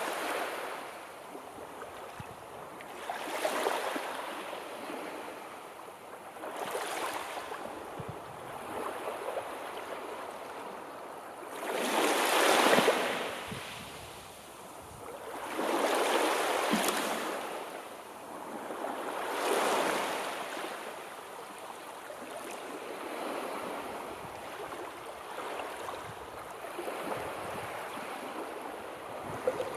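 Sea waves washing in and drawing back, a rushing hiss that swells and fades every three to four seconds. The biggest surge comes about twelve seconds in, and the waves grow gentler in the last third.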